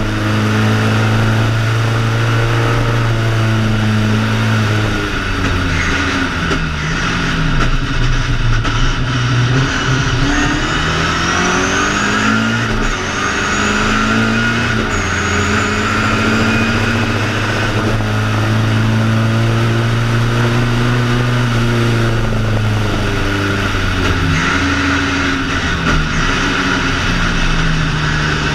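BMW 2002 ti's four-cylinder engine under race power, heard from inside the cabin, revving up and dropping in pitch several times as it lifts off and changes gear.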